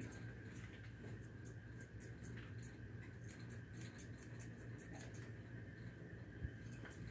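Curved grooming shears snipping through a standard poodle's thick coat: faint, quick snips, several a second in irregular runs, with a short pause near the end.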